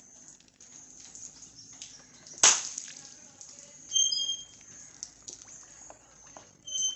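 A single sharp, loud pop about two and a half seconds in, a balloon bursting under a motorcycle tyre. Later come two short high bird chirps.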